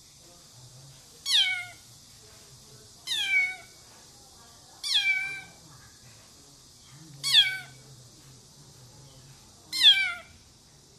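Tabby kitten meowing: five high-pitched calls, each falling in pitch, about every two seconds.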